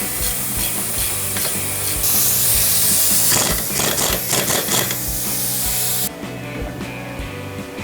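A workshop tool running with a harsh hiss and rapid rattle for about six seconds, loudest partway through, then cutting off suddenly, over background music with a steady beat.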